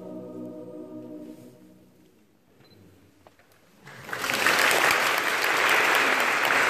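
A mixed choir's final held chord fades away, a moment of near quiet follows, and about four seconds in the audience breaks into applause that stays loud.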